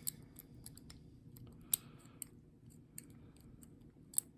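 Lock pick working the pins inside a ZETA padlock's keyway under tension: a scatter of small metallic clicks and ticks, with a few sharper clicks about a tenth of a second in, near the middle and near the end.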